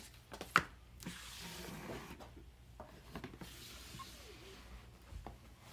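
Cardboard and paper game components being handled and taken out of a box: soft rustling and rubbing with a few sharp clicks, the loudest about half a second in.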